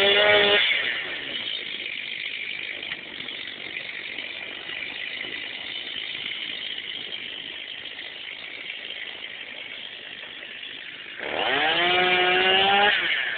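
Two-stroke chainsaw revved at the start, dropping back to a quieter idle after about half a second, then revved up again with a rising note near the end and held for about two seconds.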